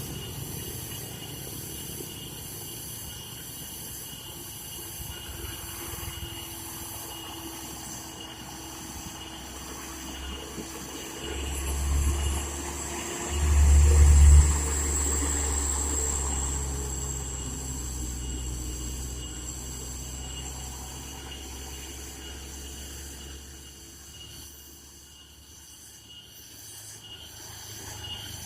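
Loaded heavy diesel truck labouring up a steep grade, its engine rumble swelling to a peak as it passes close about halfway through, then fading away.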